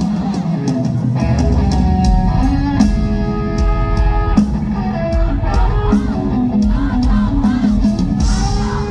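Loud rock music: guitar notes over a drum kit, playing without a break.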